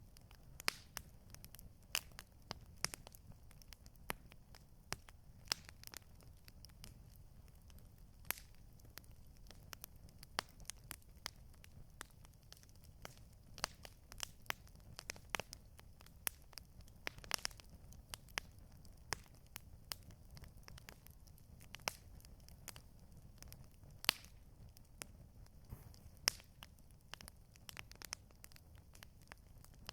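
Campfire crackling: irregular sharp pops and snaps, a few of them louder, over a low steady rumble.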